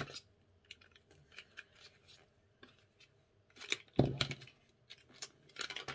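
Hands handling small cosmetics packaging on a wooden table: light rustles and scattered clicks, a louder knock about four seconds in, and a quick run of clicks near the end.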